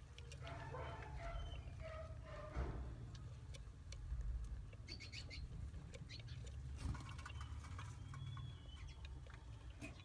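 Budgerigars in a nest box giving short chirping calls, a few in the first seconds and more around the middle, over a low rumble from the phone being handled.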